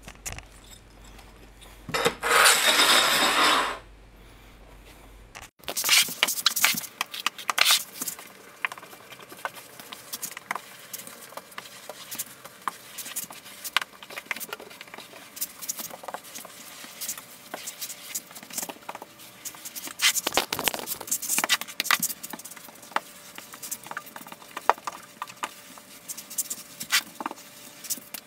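Gloved hands scrubbing and wiping grout off a tile floor with a sponge: an irregular run of scrapes, rubs and small taps. A loud rushing noise lasts about two seconds near the start.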